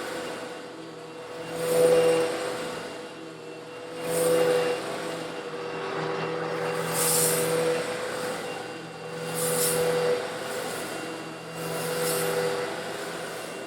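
Old Eureka vacuum cleaner running with a steady motor hum while sucking up coarse stone granules, which rattle through the hose in surges that swell about every two seconds.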